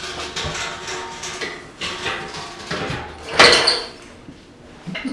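A hydraulic floor jack is let down and pulled out from under the screw-drive ATV's front corner, with metal scraping and clanking as the chassis settles and the jack is dragged away. The loudest scrape comes about three and a half seconds in.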